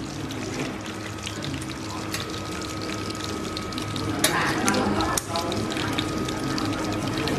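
Dried snakehead fish fillets frying in hot oil in a pan, the oil crackling with many small pops. About four to five seconds in, a few louder knocks come as metal tongs move the fish in the pan.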